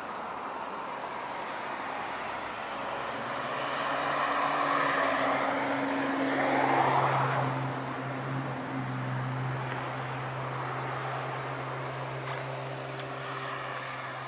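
A UPS delivery truck driving past on the road beside the track: a steady engine hum with tyre noise that swells to its loudest about seven seconds in, then eases as it moves away.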